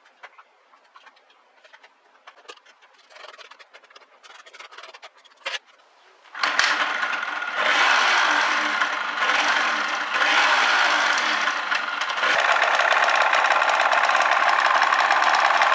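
Yamaha TDR250's two-stroke parallel-twin engine starting suddenly about six seconds in after some faint clicks, revved up and down a couple of times, then running steadily.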